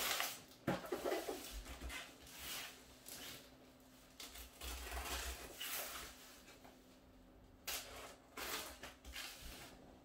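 Small cardboard shipping boxes being handled and opened: irregular rustles, scrapes and taps of cardboard and packing tape, over a faint steady hum.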